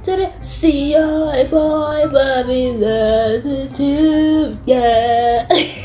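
A young woman singing a melody in long held notes that slide between pitches with some vibrato. The singing breaks off near the end with a short noisy burst.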